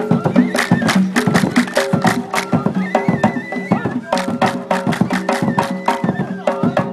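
Ahwash, the Amazigh (Berber) group song and dance: a troupe of men chanting together in long held lines, over a fast, steady beat of handclaps and drum strokes.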